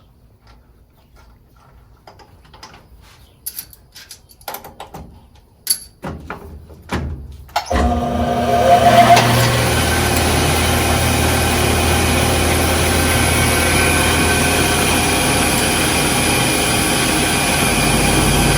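Clicks and knocks of parts being handled and set up, then about eight seconds in a drill's electric motor switches on, whines briefly up to speed and runs steadily.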